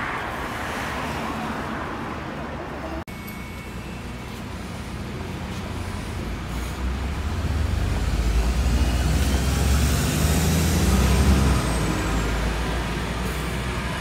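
Street traffic, then a double-decker bus pulling in to a stop. Its deep engine rumble builds to its loudest about two-thirds of the way through and then eases off.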